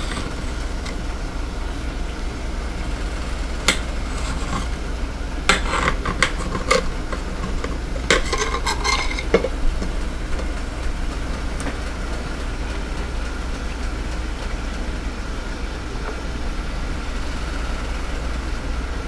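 Bacon sizzling in a frying pan, a steady hiss throughout, with a knife clicking and scraping against a plate several times in the first half as a tomato is cut into wedges.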